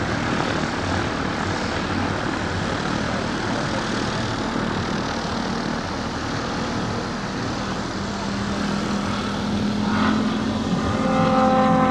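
Large radio-controlled F4U Corsair scale model flying overhead, its motor and propeller giving a continuous rough drone that grows a little louder near the end.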